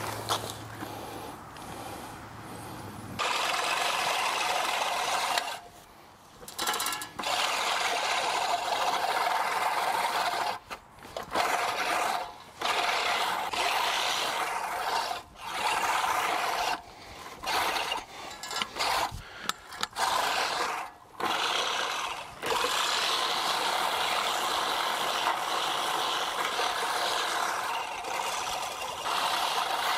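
Remington push reel mower's spinning reel blades cutting thick grass: a rasping whir that starts about three seconds in, stops and starts many times, then runs steadily near the end. The reel is set too low for grass this thick, which the owner takes to be why the mower struggles.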